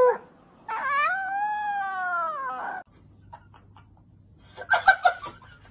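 Husky puppy giving one long howl, about two seconds, that rises and then falls in pitch. A few brief sharp sounds follow near the end.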